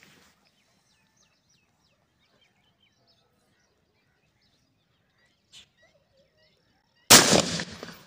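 A single-barrel break-action shotgun fired once, about seven seconds in: a sudden loud blast that dies away over about a second. Before the shot, faint bird chirps.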